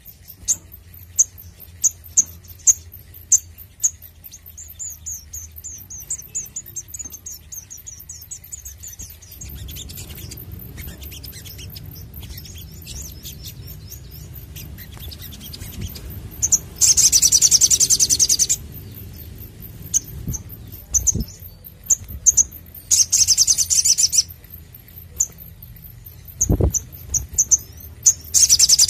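Male olive-backed sunbird singing: a scatter of short, high chirps, then three bursts of rapid, loud trilling, the rapid-fire 'nembak' song, spaced through the second half. A single low thump comes shortly before the end.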